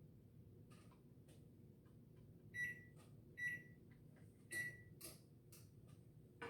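Short electronic beeps from a kitchen appliance's beeper: three beeps, unevenly spaced, in the second half, with a few faint clicks between them.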